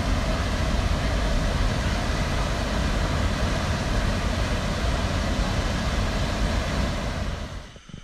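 A waterfall and river rapids rushing, a loud, steady roar of water. The noise drops away sharply near the end.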